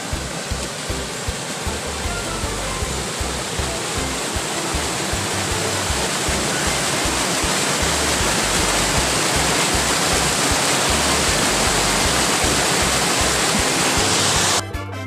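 Spring water gushing out of a rock opening from underground and cascading over rocks: a loud, steady rushing that grows gradually louder and cuts off suddenly near the end.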